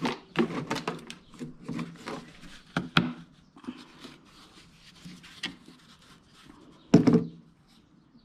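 Hand tools and gear being picked up, moved and set down: a quick run of knocks and clatters, then quieter handling, with one loud knock about seven seconds in.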